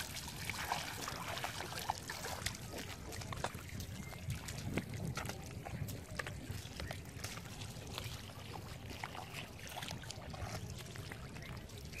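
Barefoot footsteps splashing through shallow water and then squelching through wet mud, with water dripping from a wet cast net; a string of small, irregular wet clicks and squishes.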